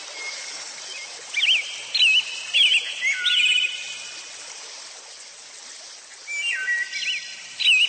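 Birdsong sound effect: a small songbird's quick, warbling chirps over a steady hiss. The chirps come in a run of short phrases, pause for a couple of seconds, then start again near the end.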